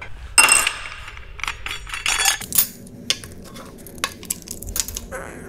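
Metallic clatter and clinks as an angle grinder, its cutting disc, flange nut and spanner wrench are handled and set down on a steel work table at the start of taking the grinder apart. A loud clatter comes about half a second in, then scattered lighter clinks.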